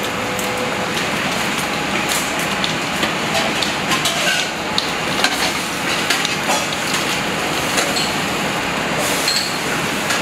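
Osso buco meat and tomato sauce sizzling in a stainless steel frying pan over a gas flame: a steady hiss with frequent sharp crackles, over steady kitchen ventilation noise.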